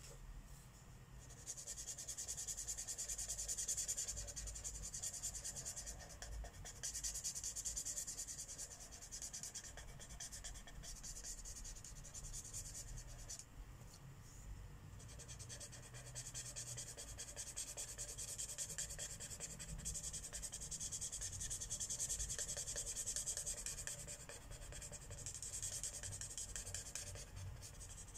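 Felt-tip marker rubbing on paper in quick coloring strokes, in long runs broken by a few short pauses as the pen is lifted.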